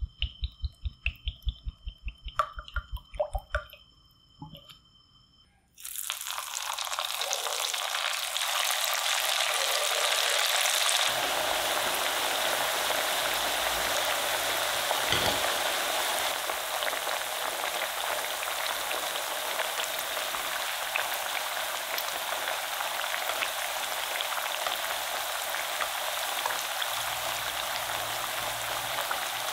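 Cooking oil poured into a frying pan with a quick, regular pulsing for the first few seconds. Then, about six seconds in, a sudden change to the loud, steady sizzle of corn-flour-coated potato squares deep-frying in hot oil.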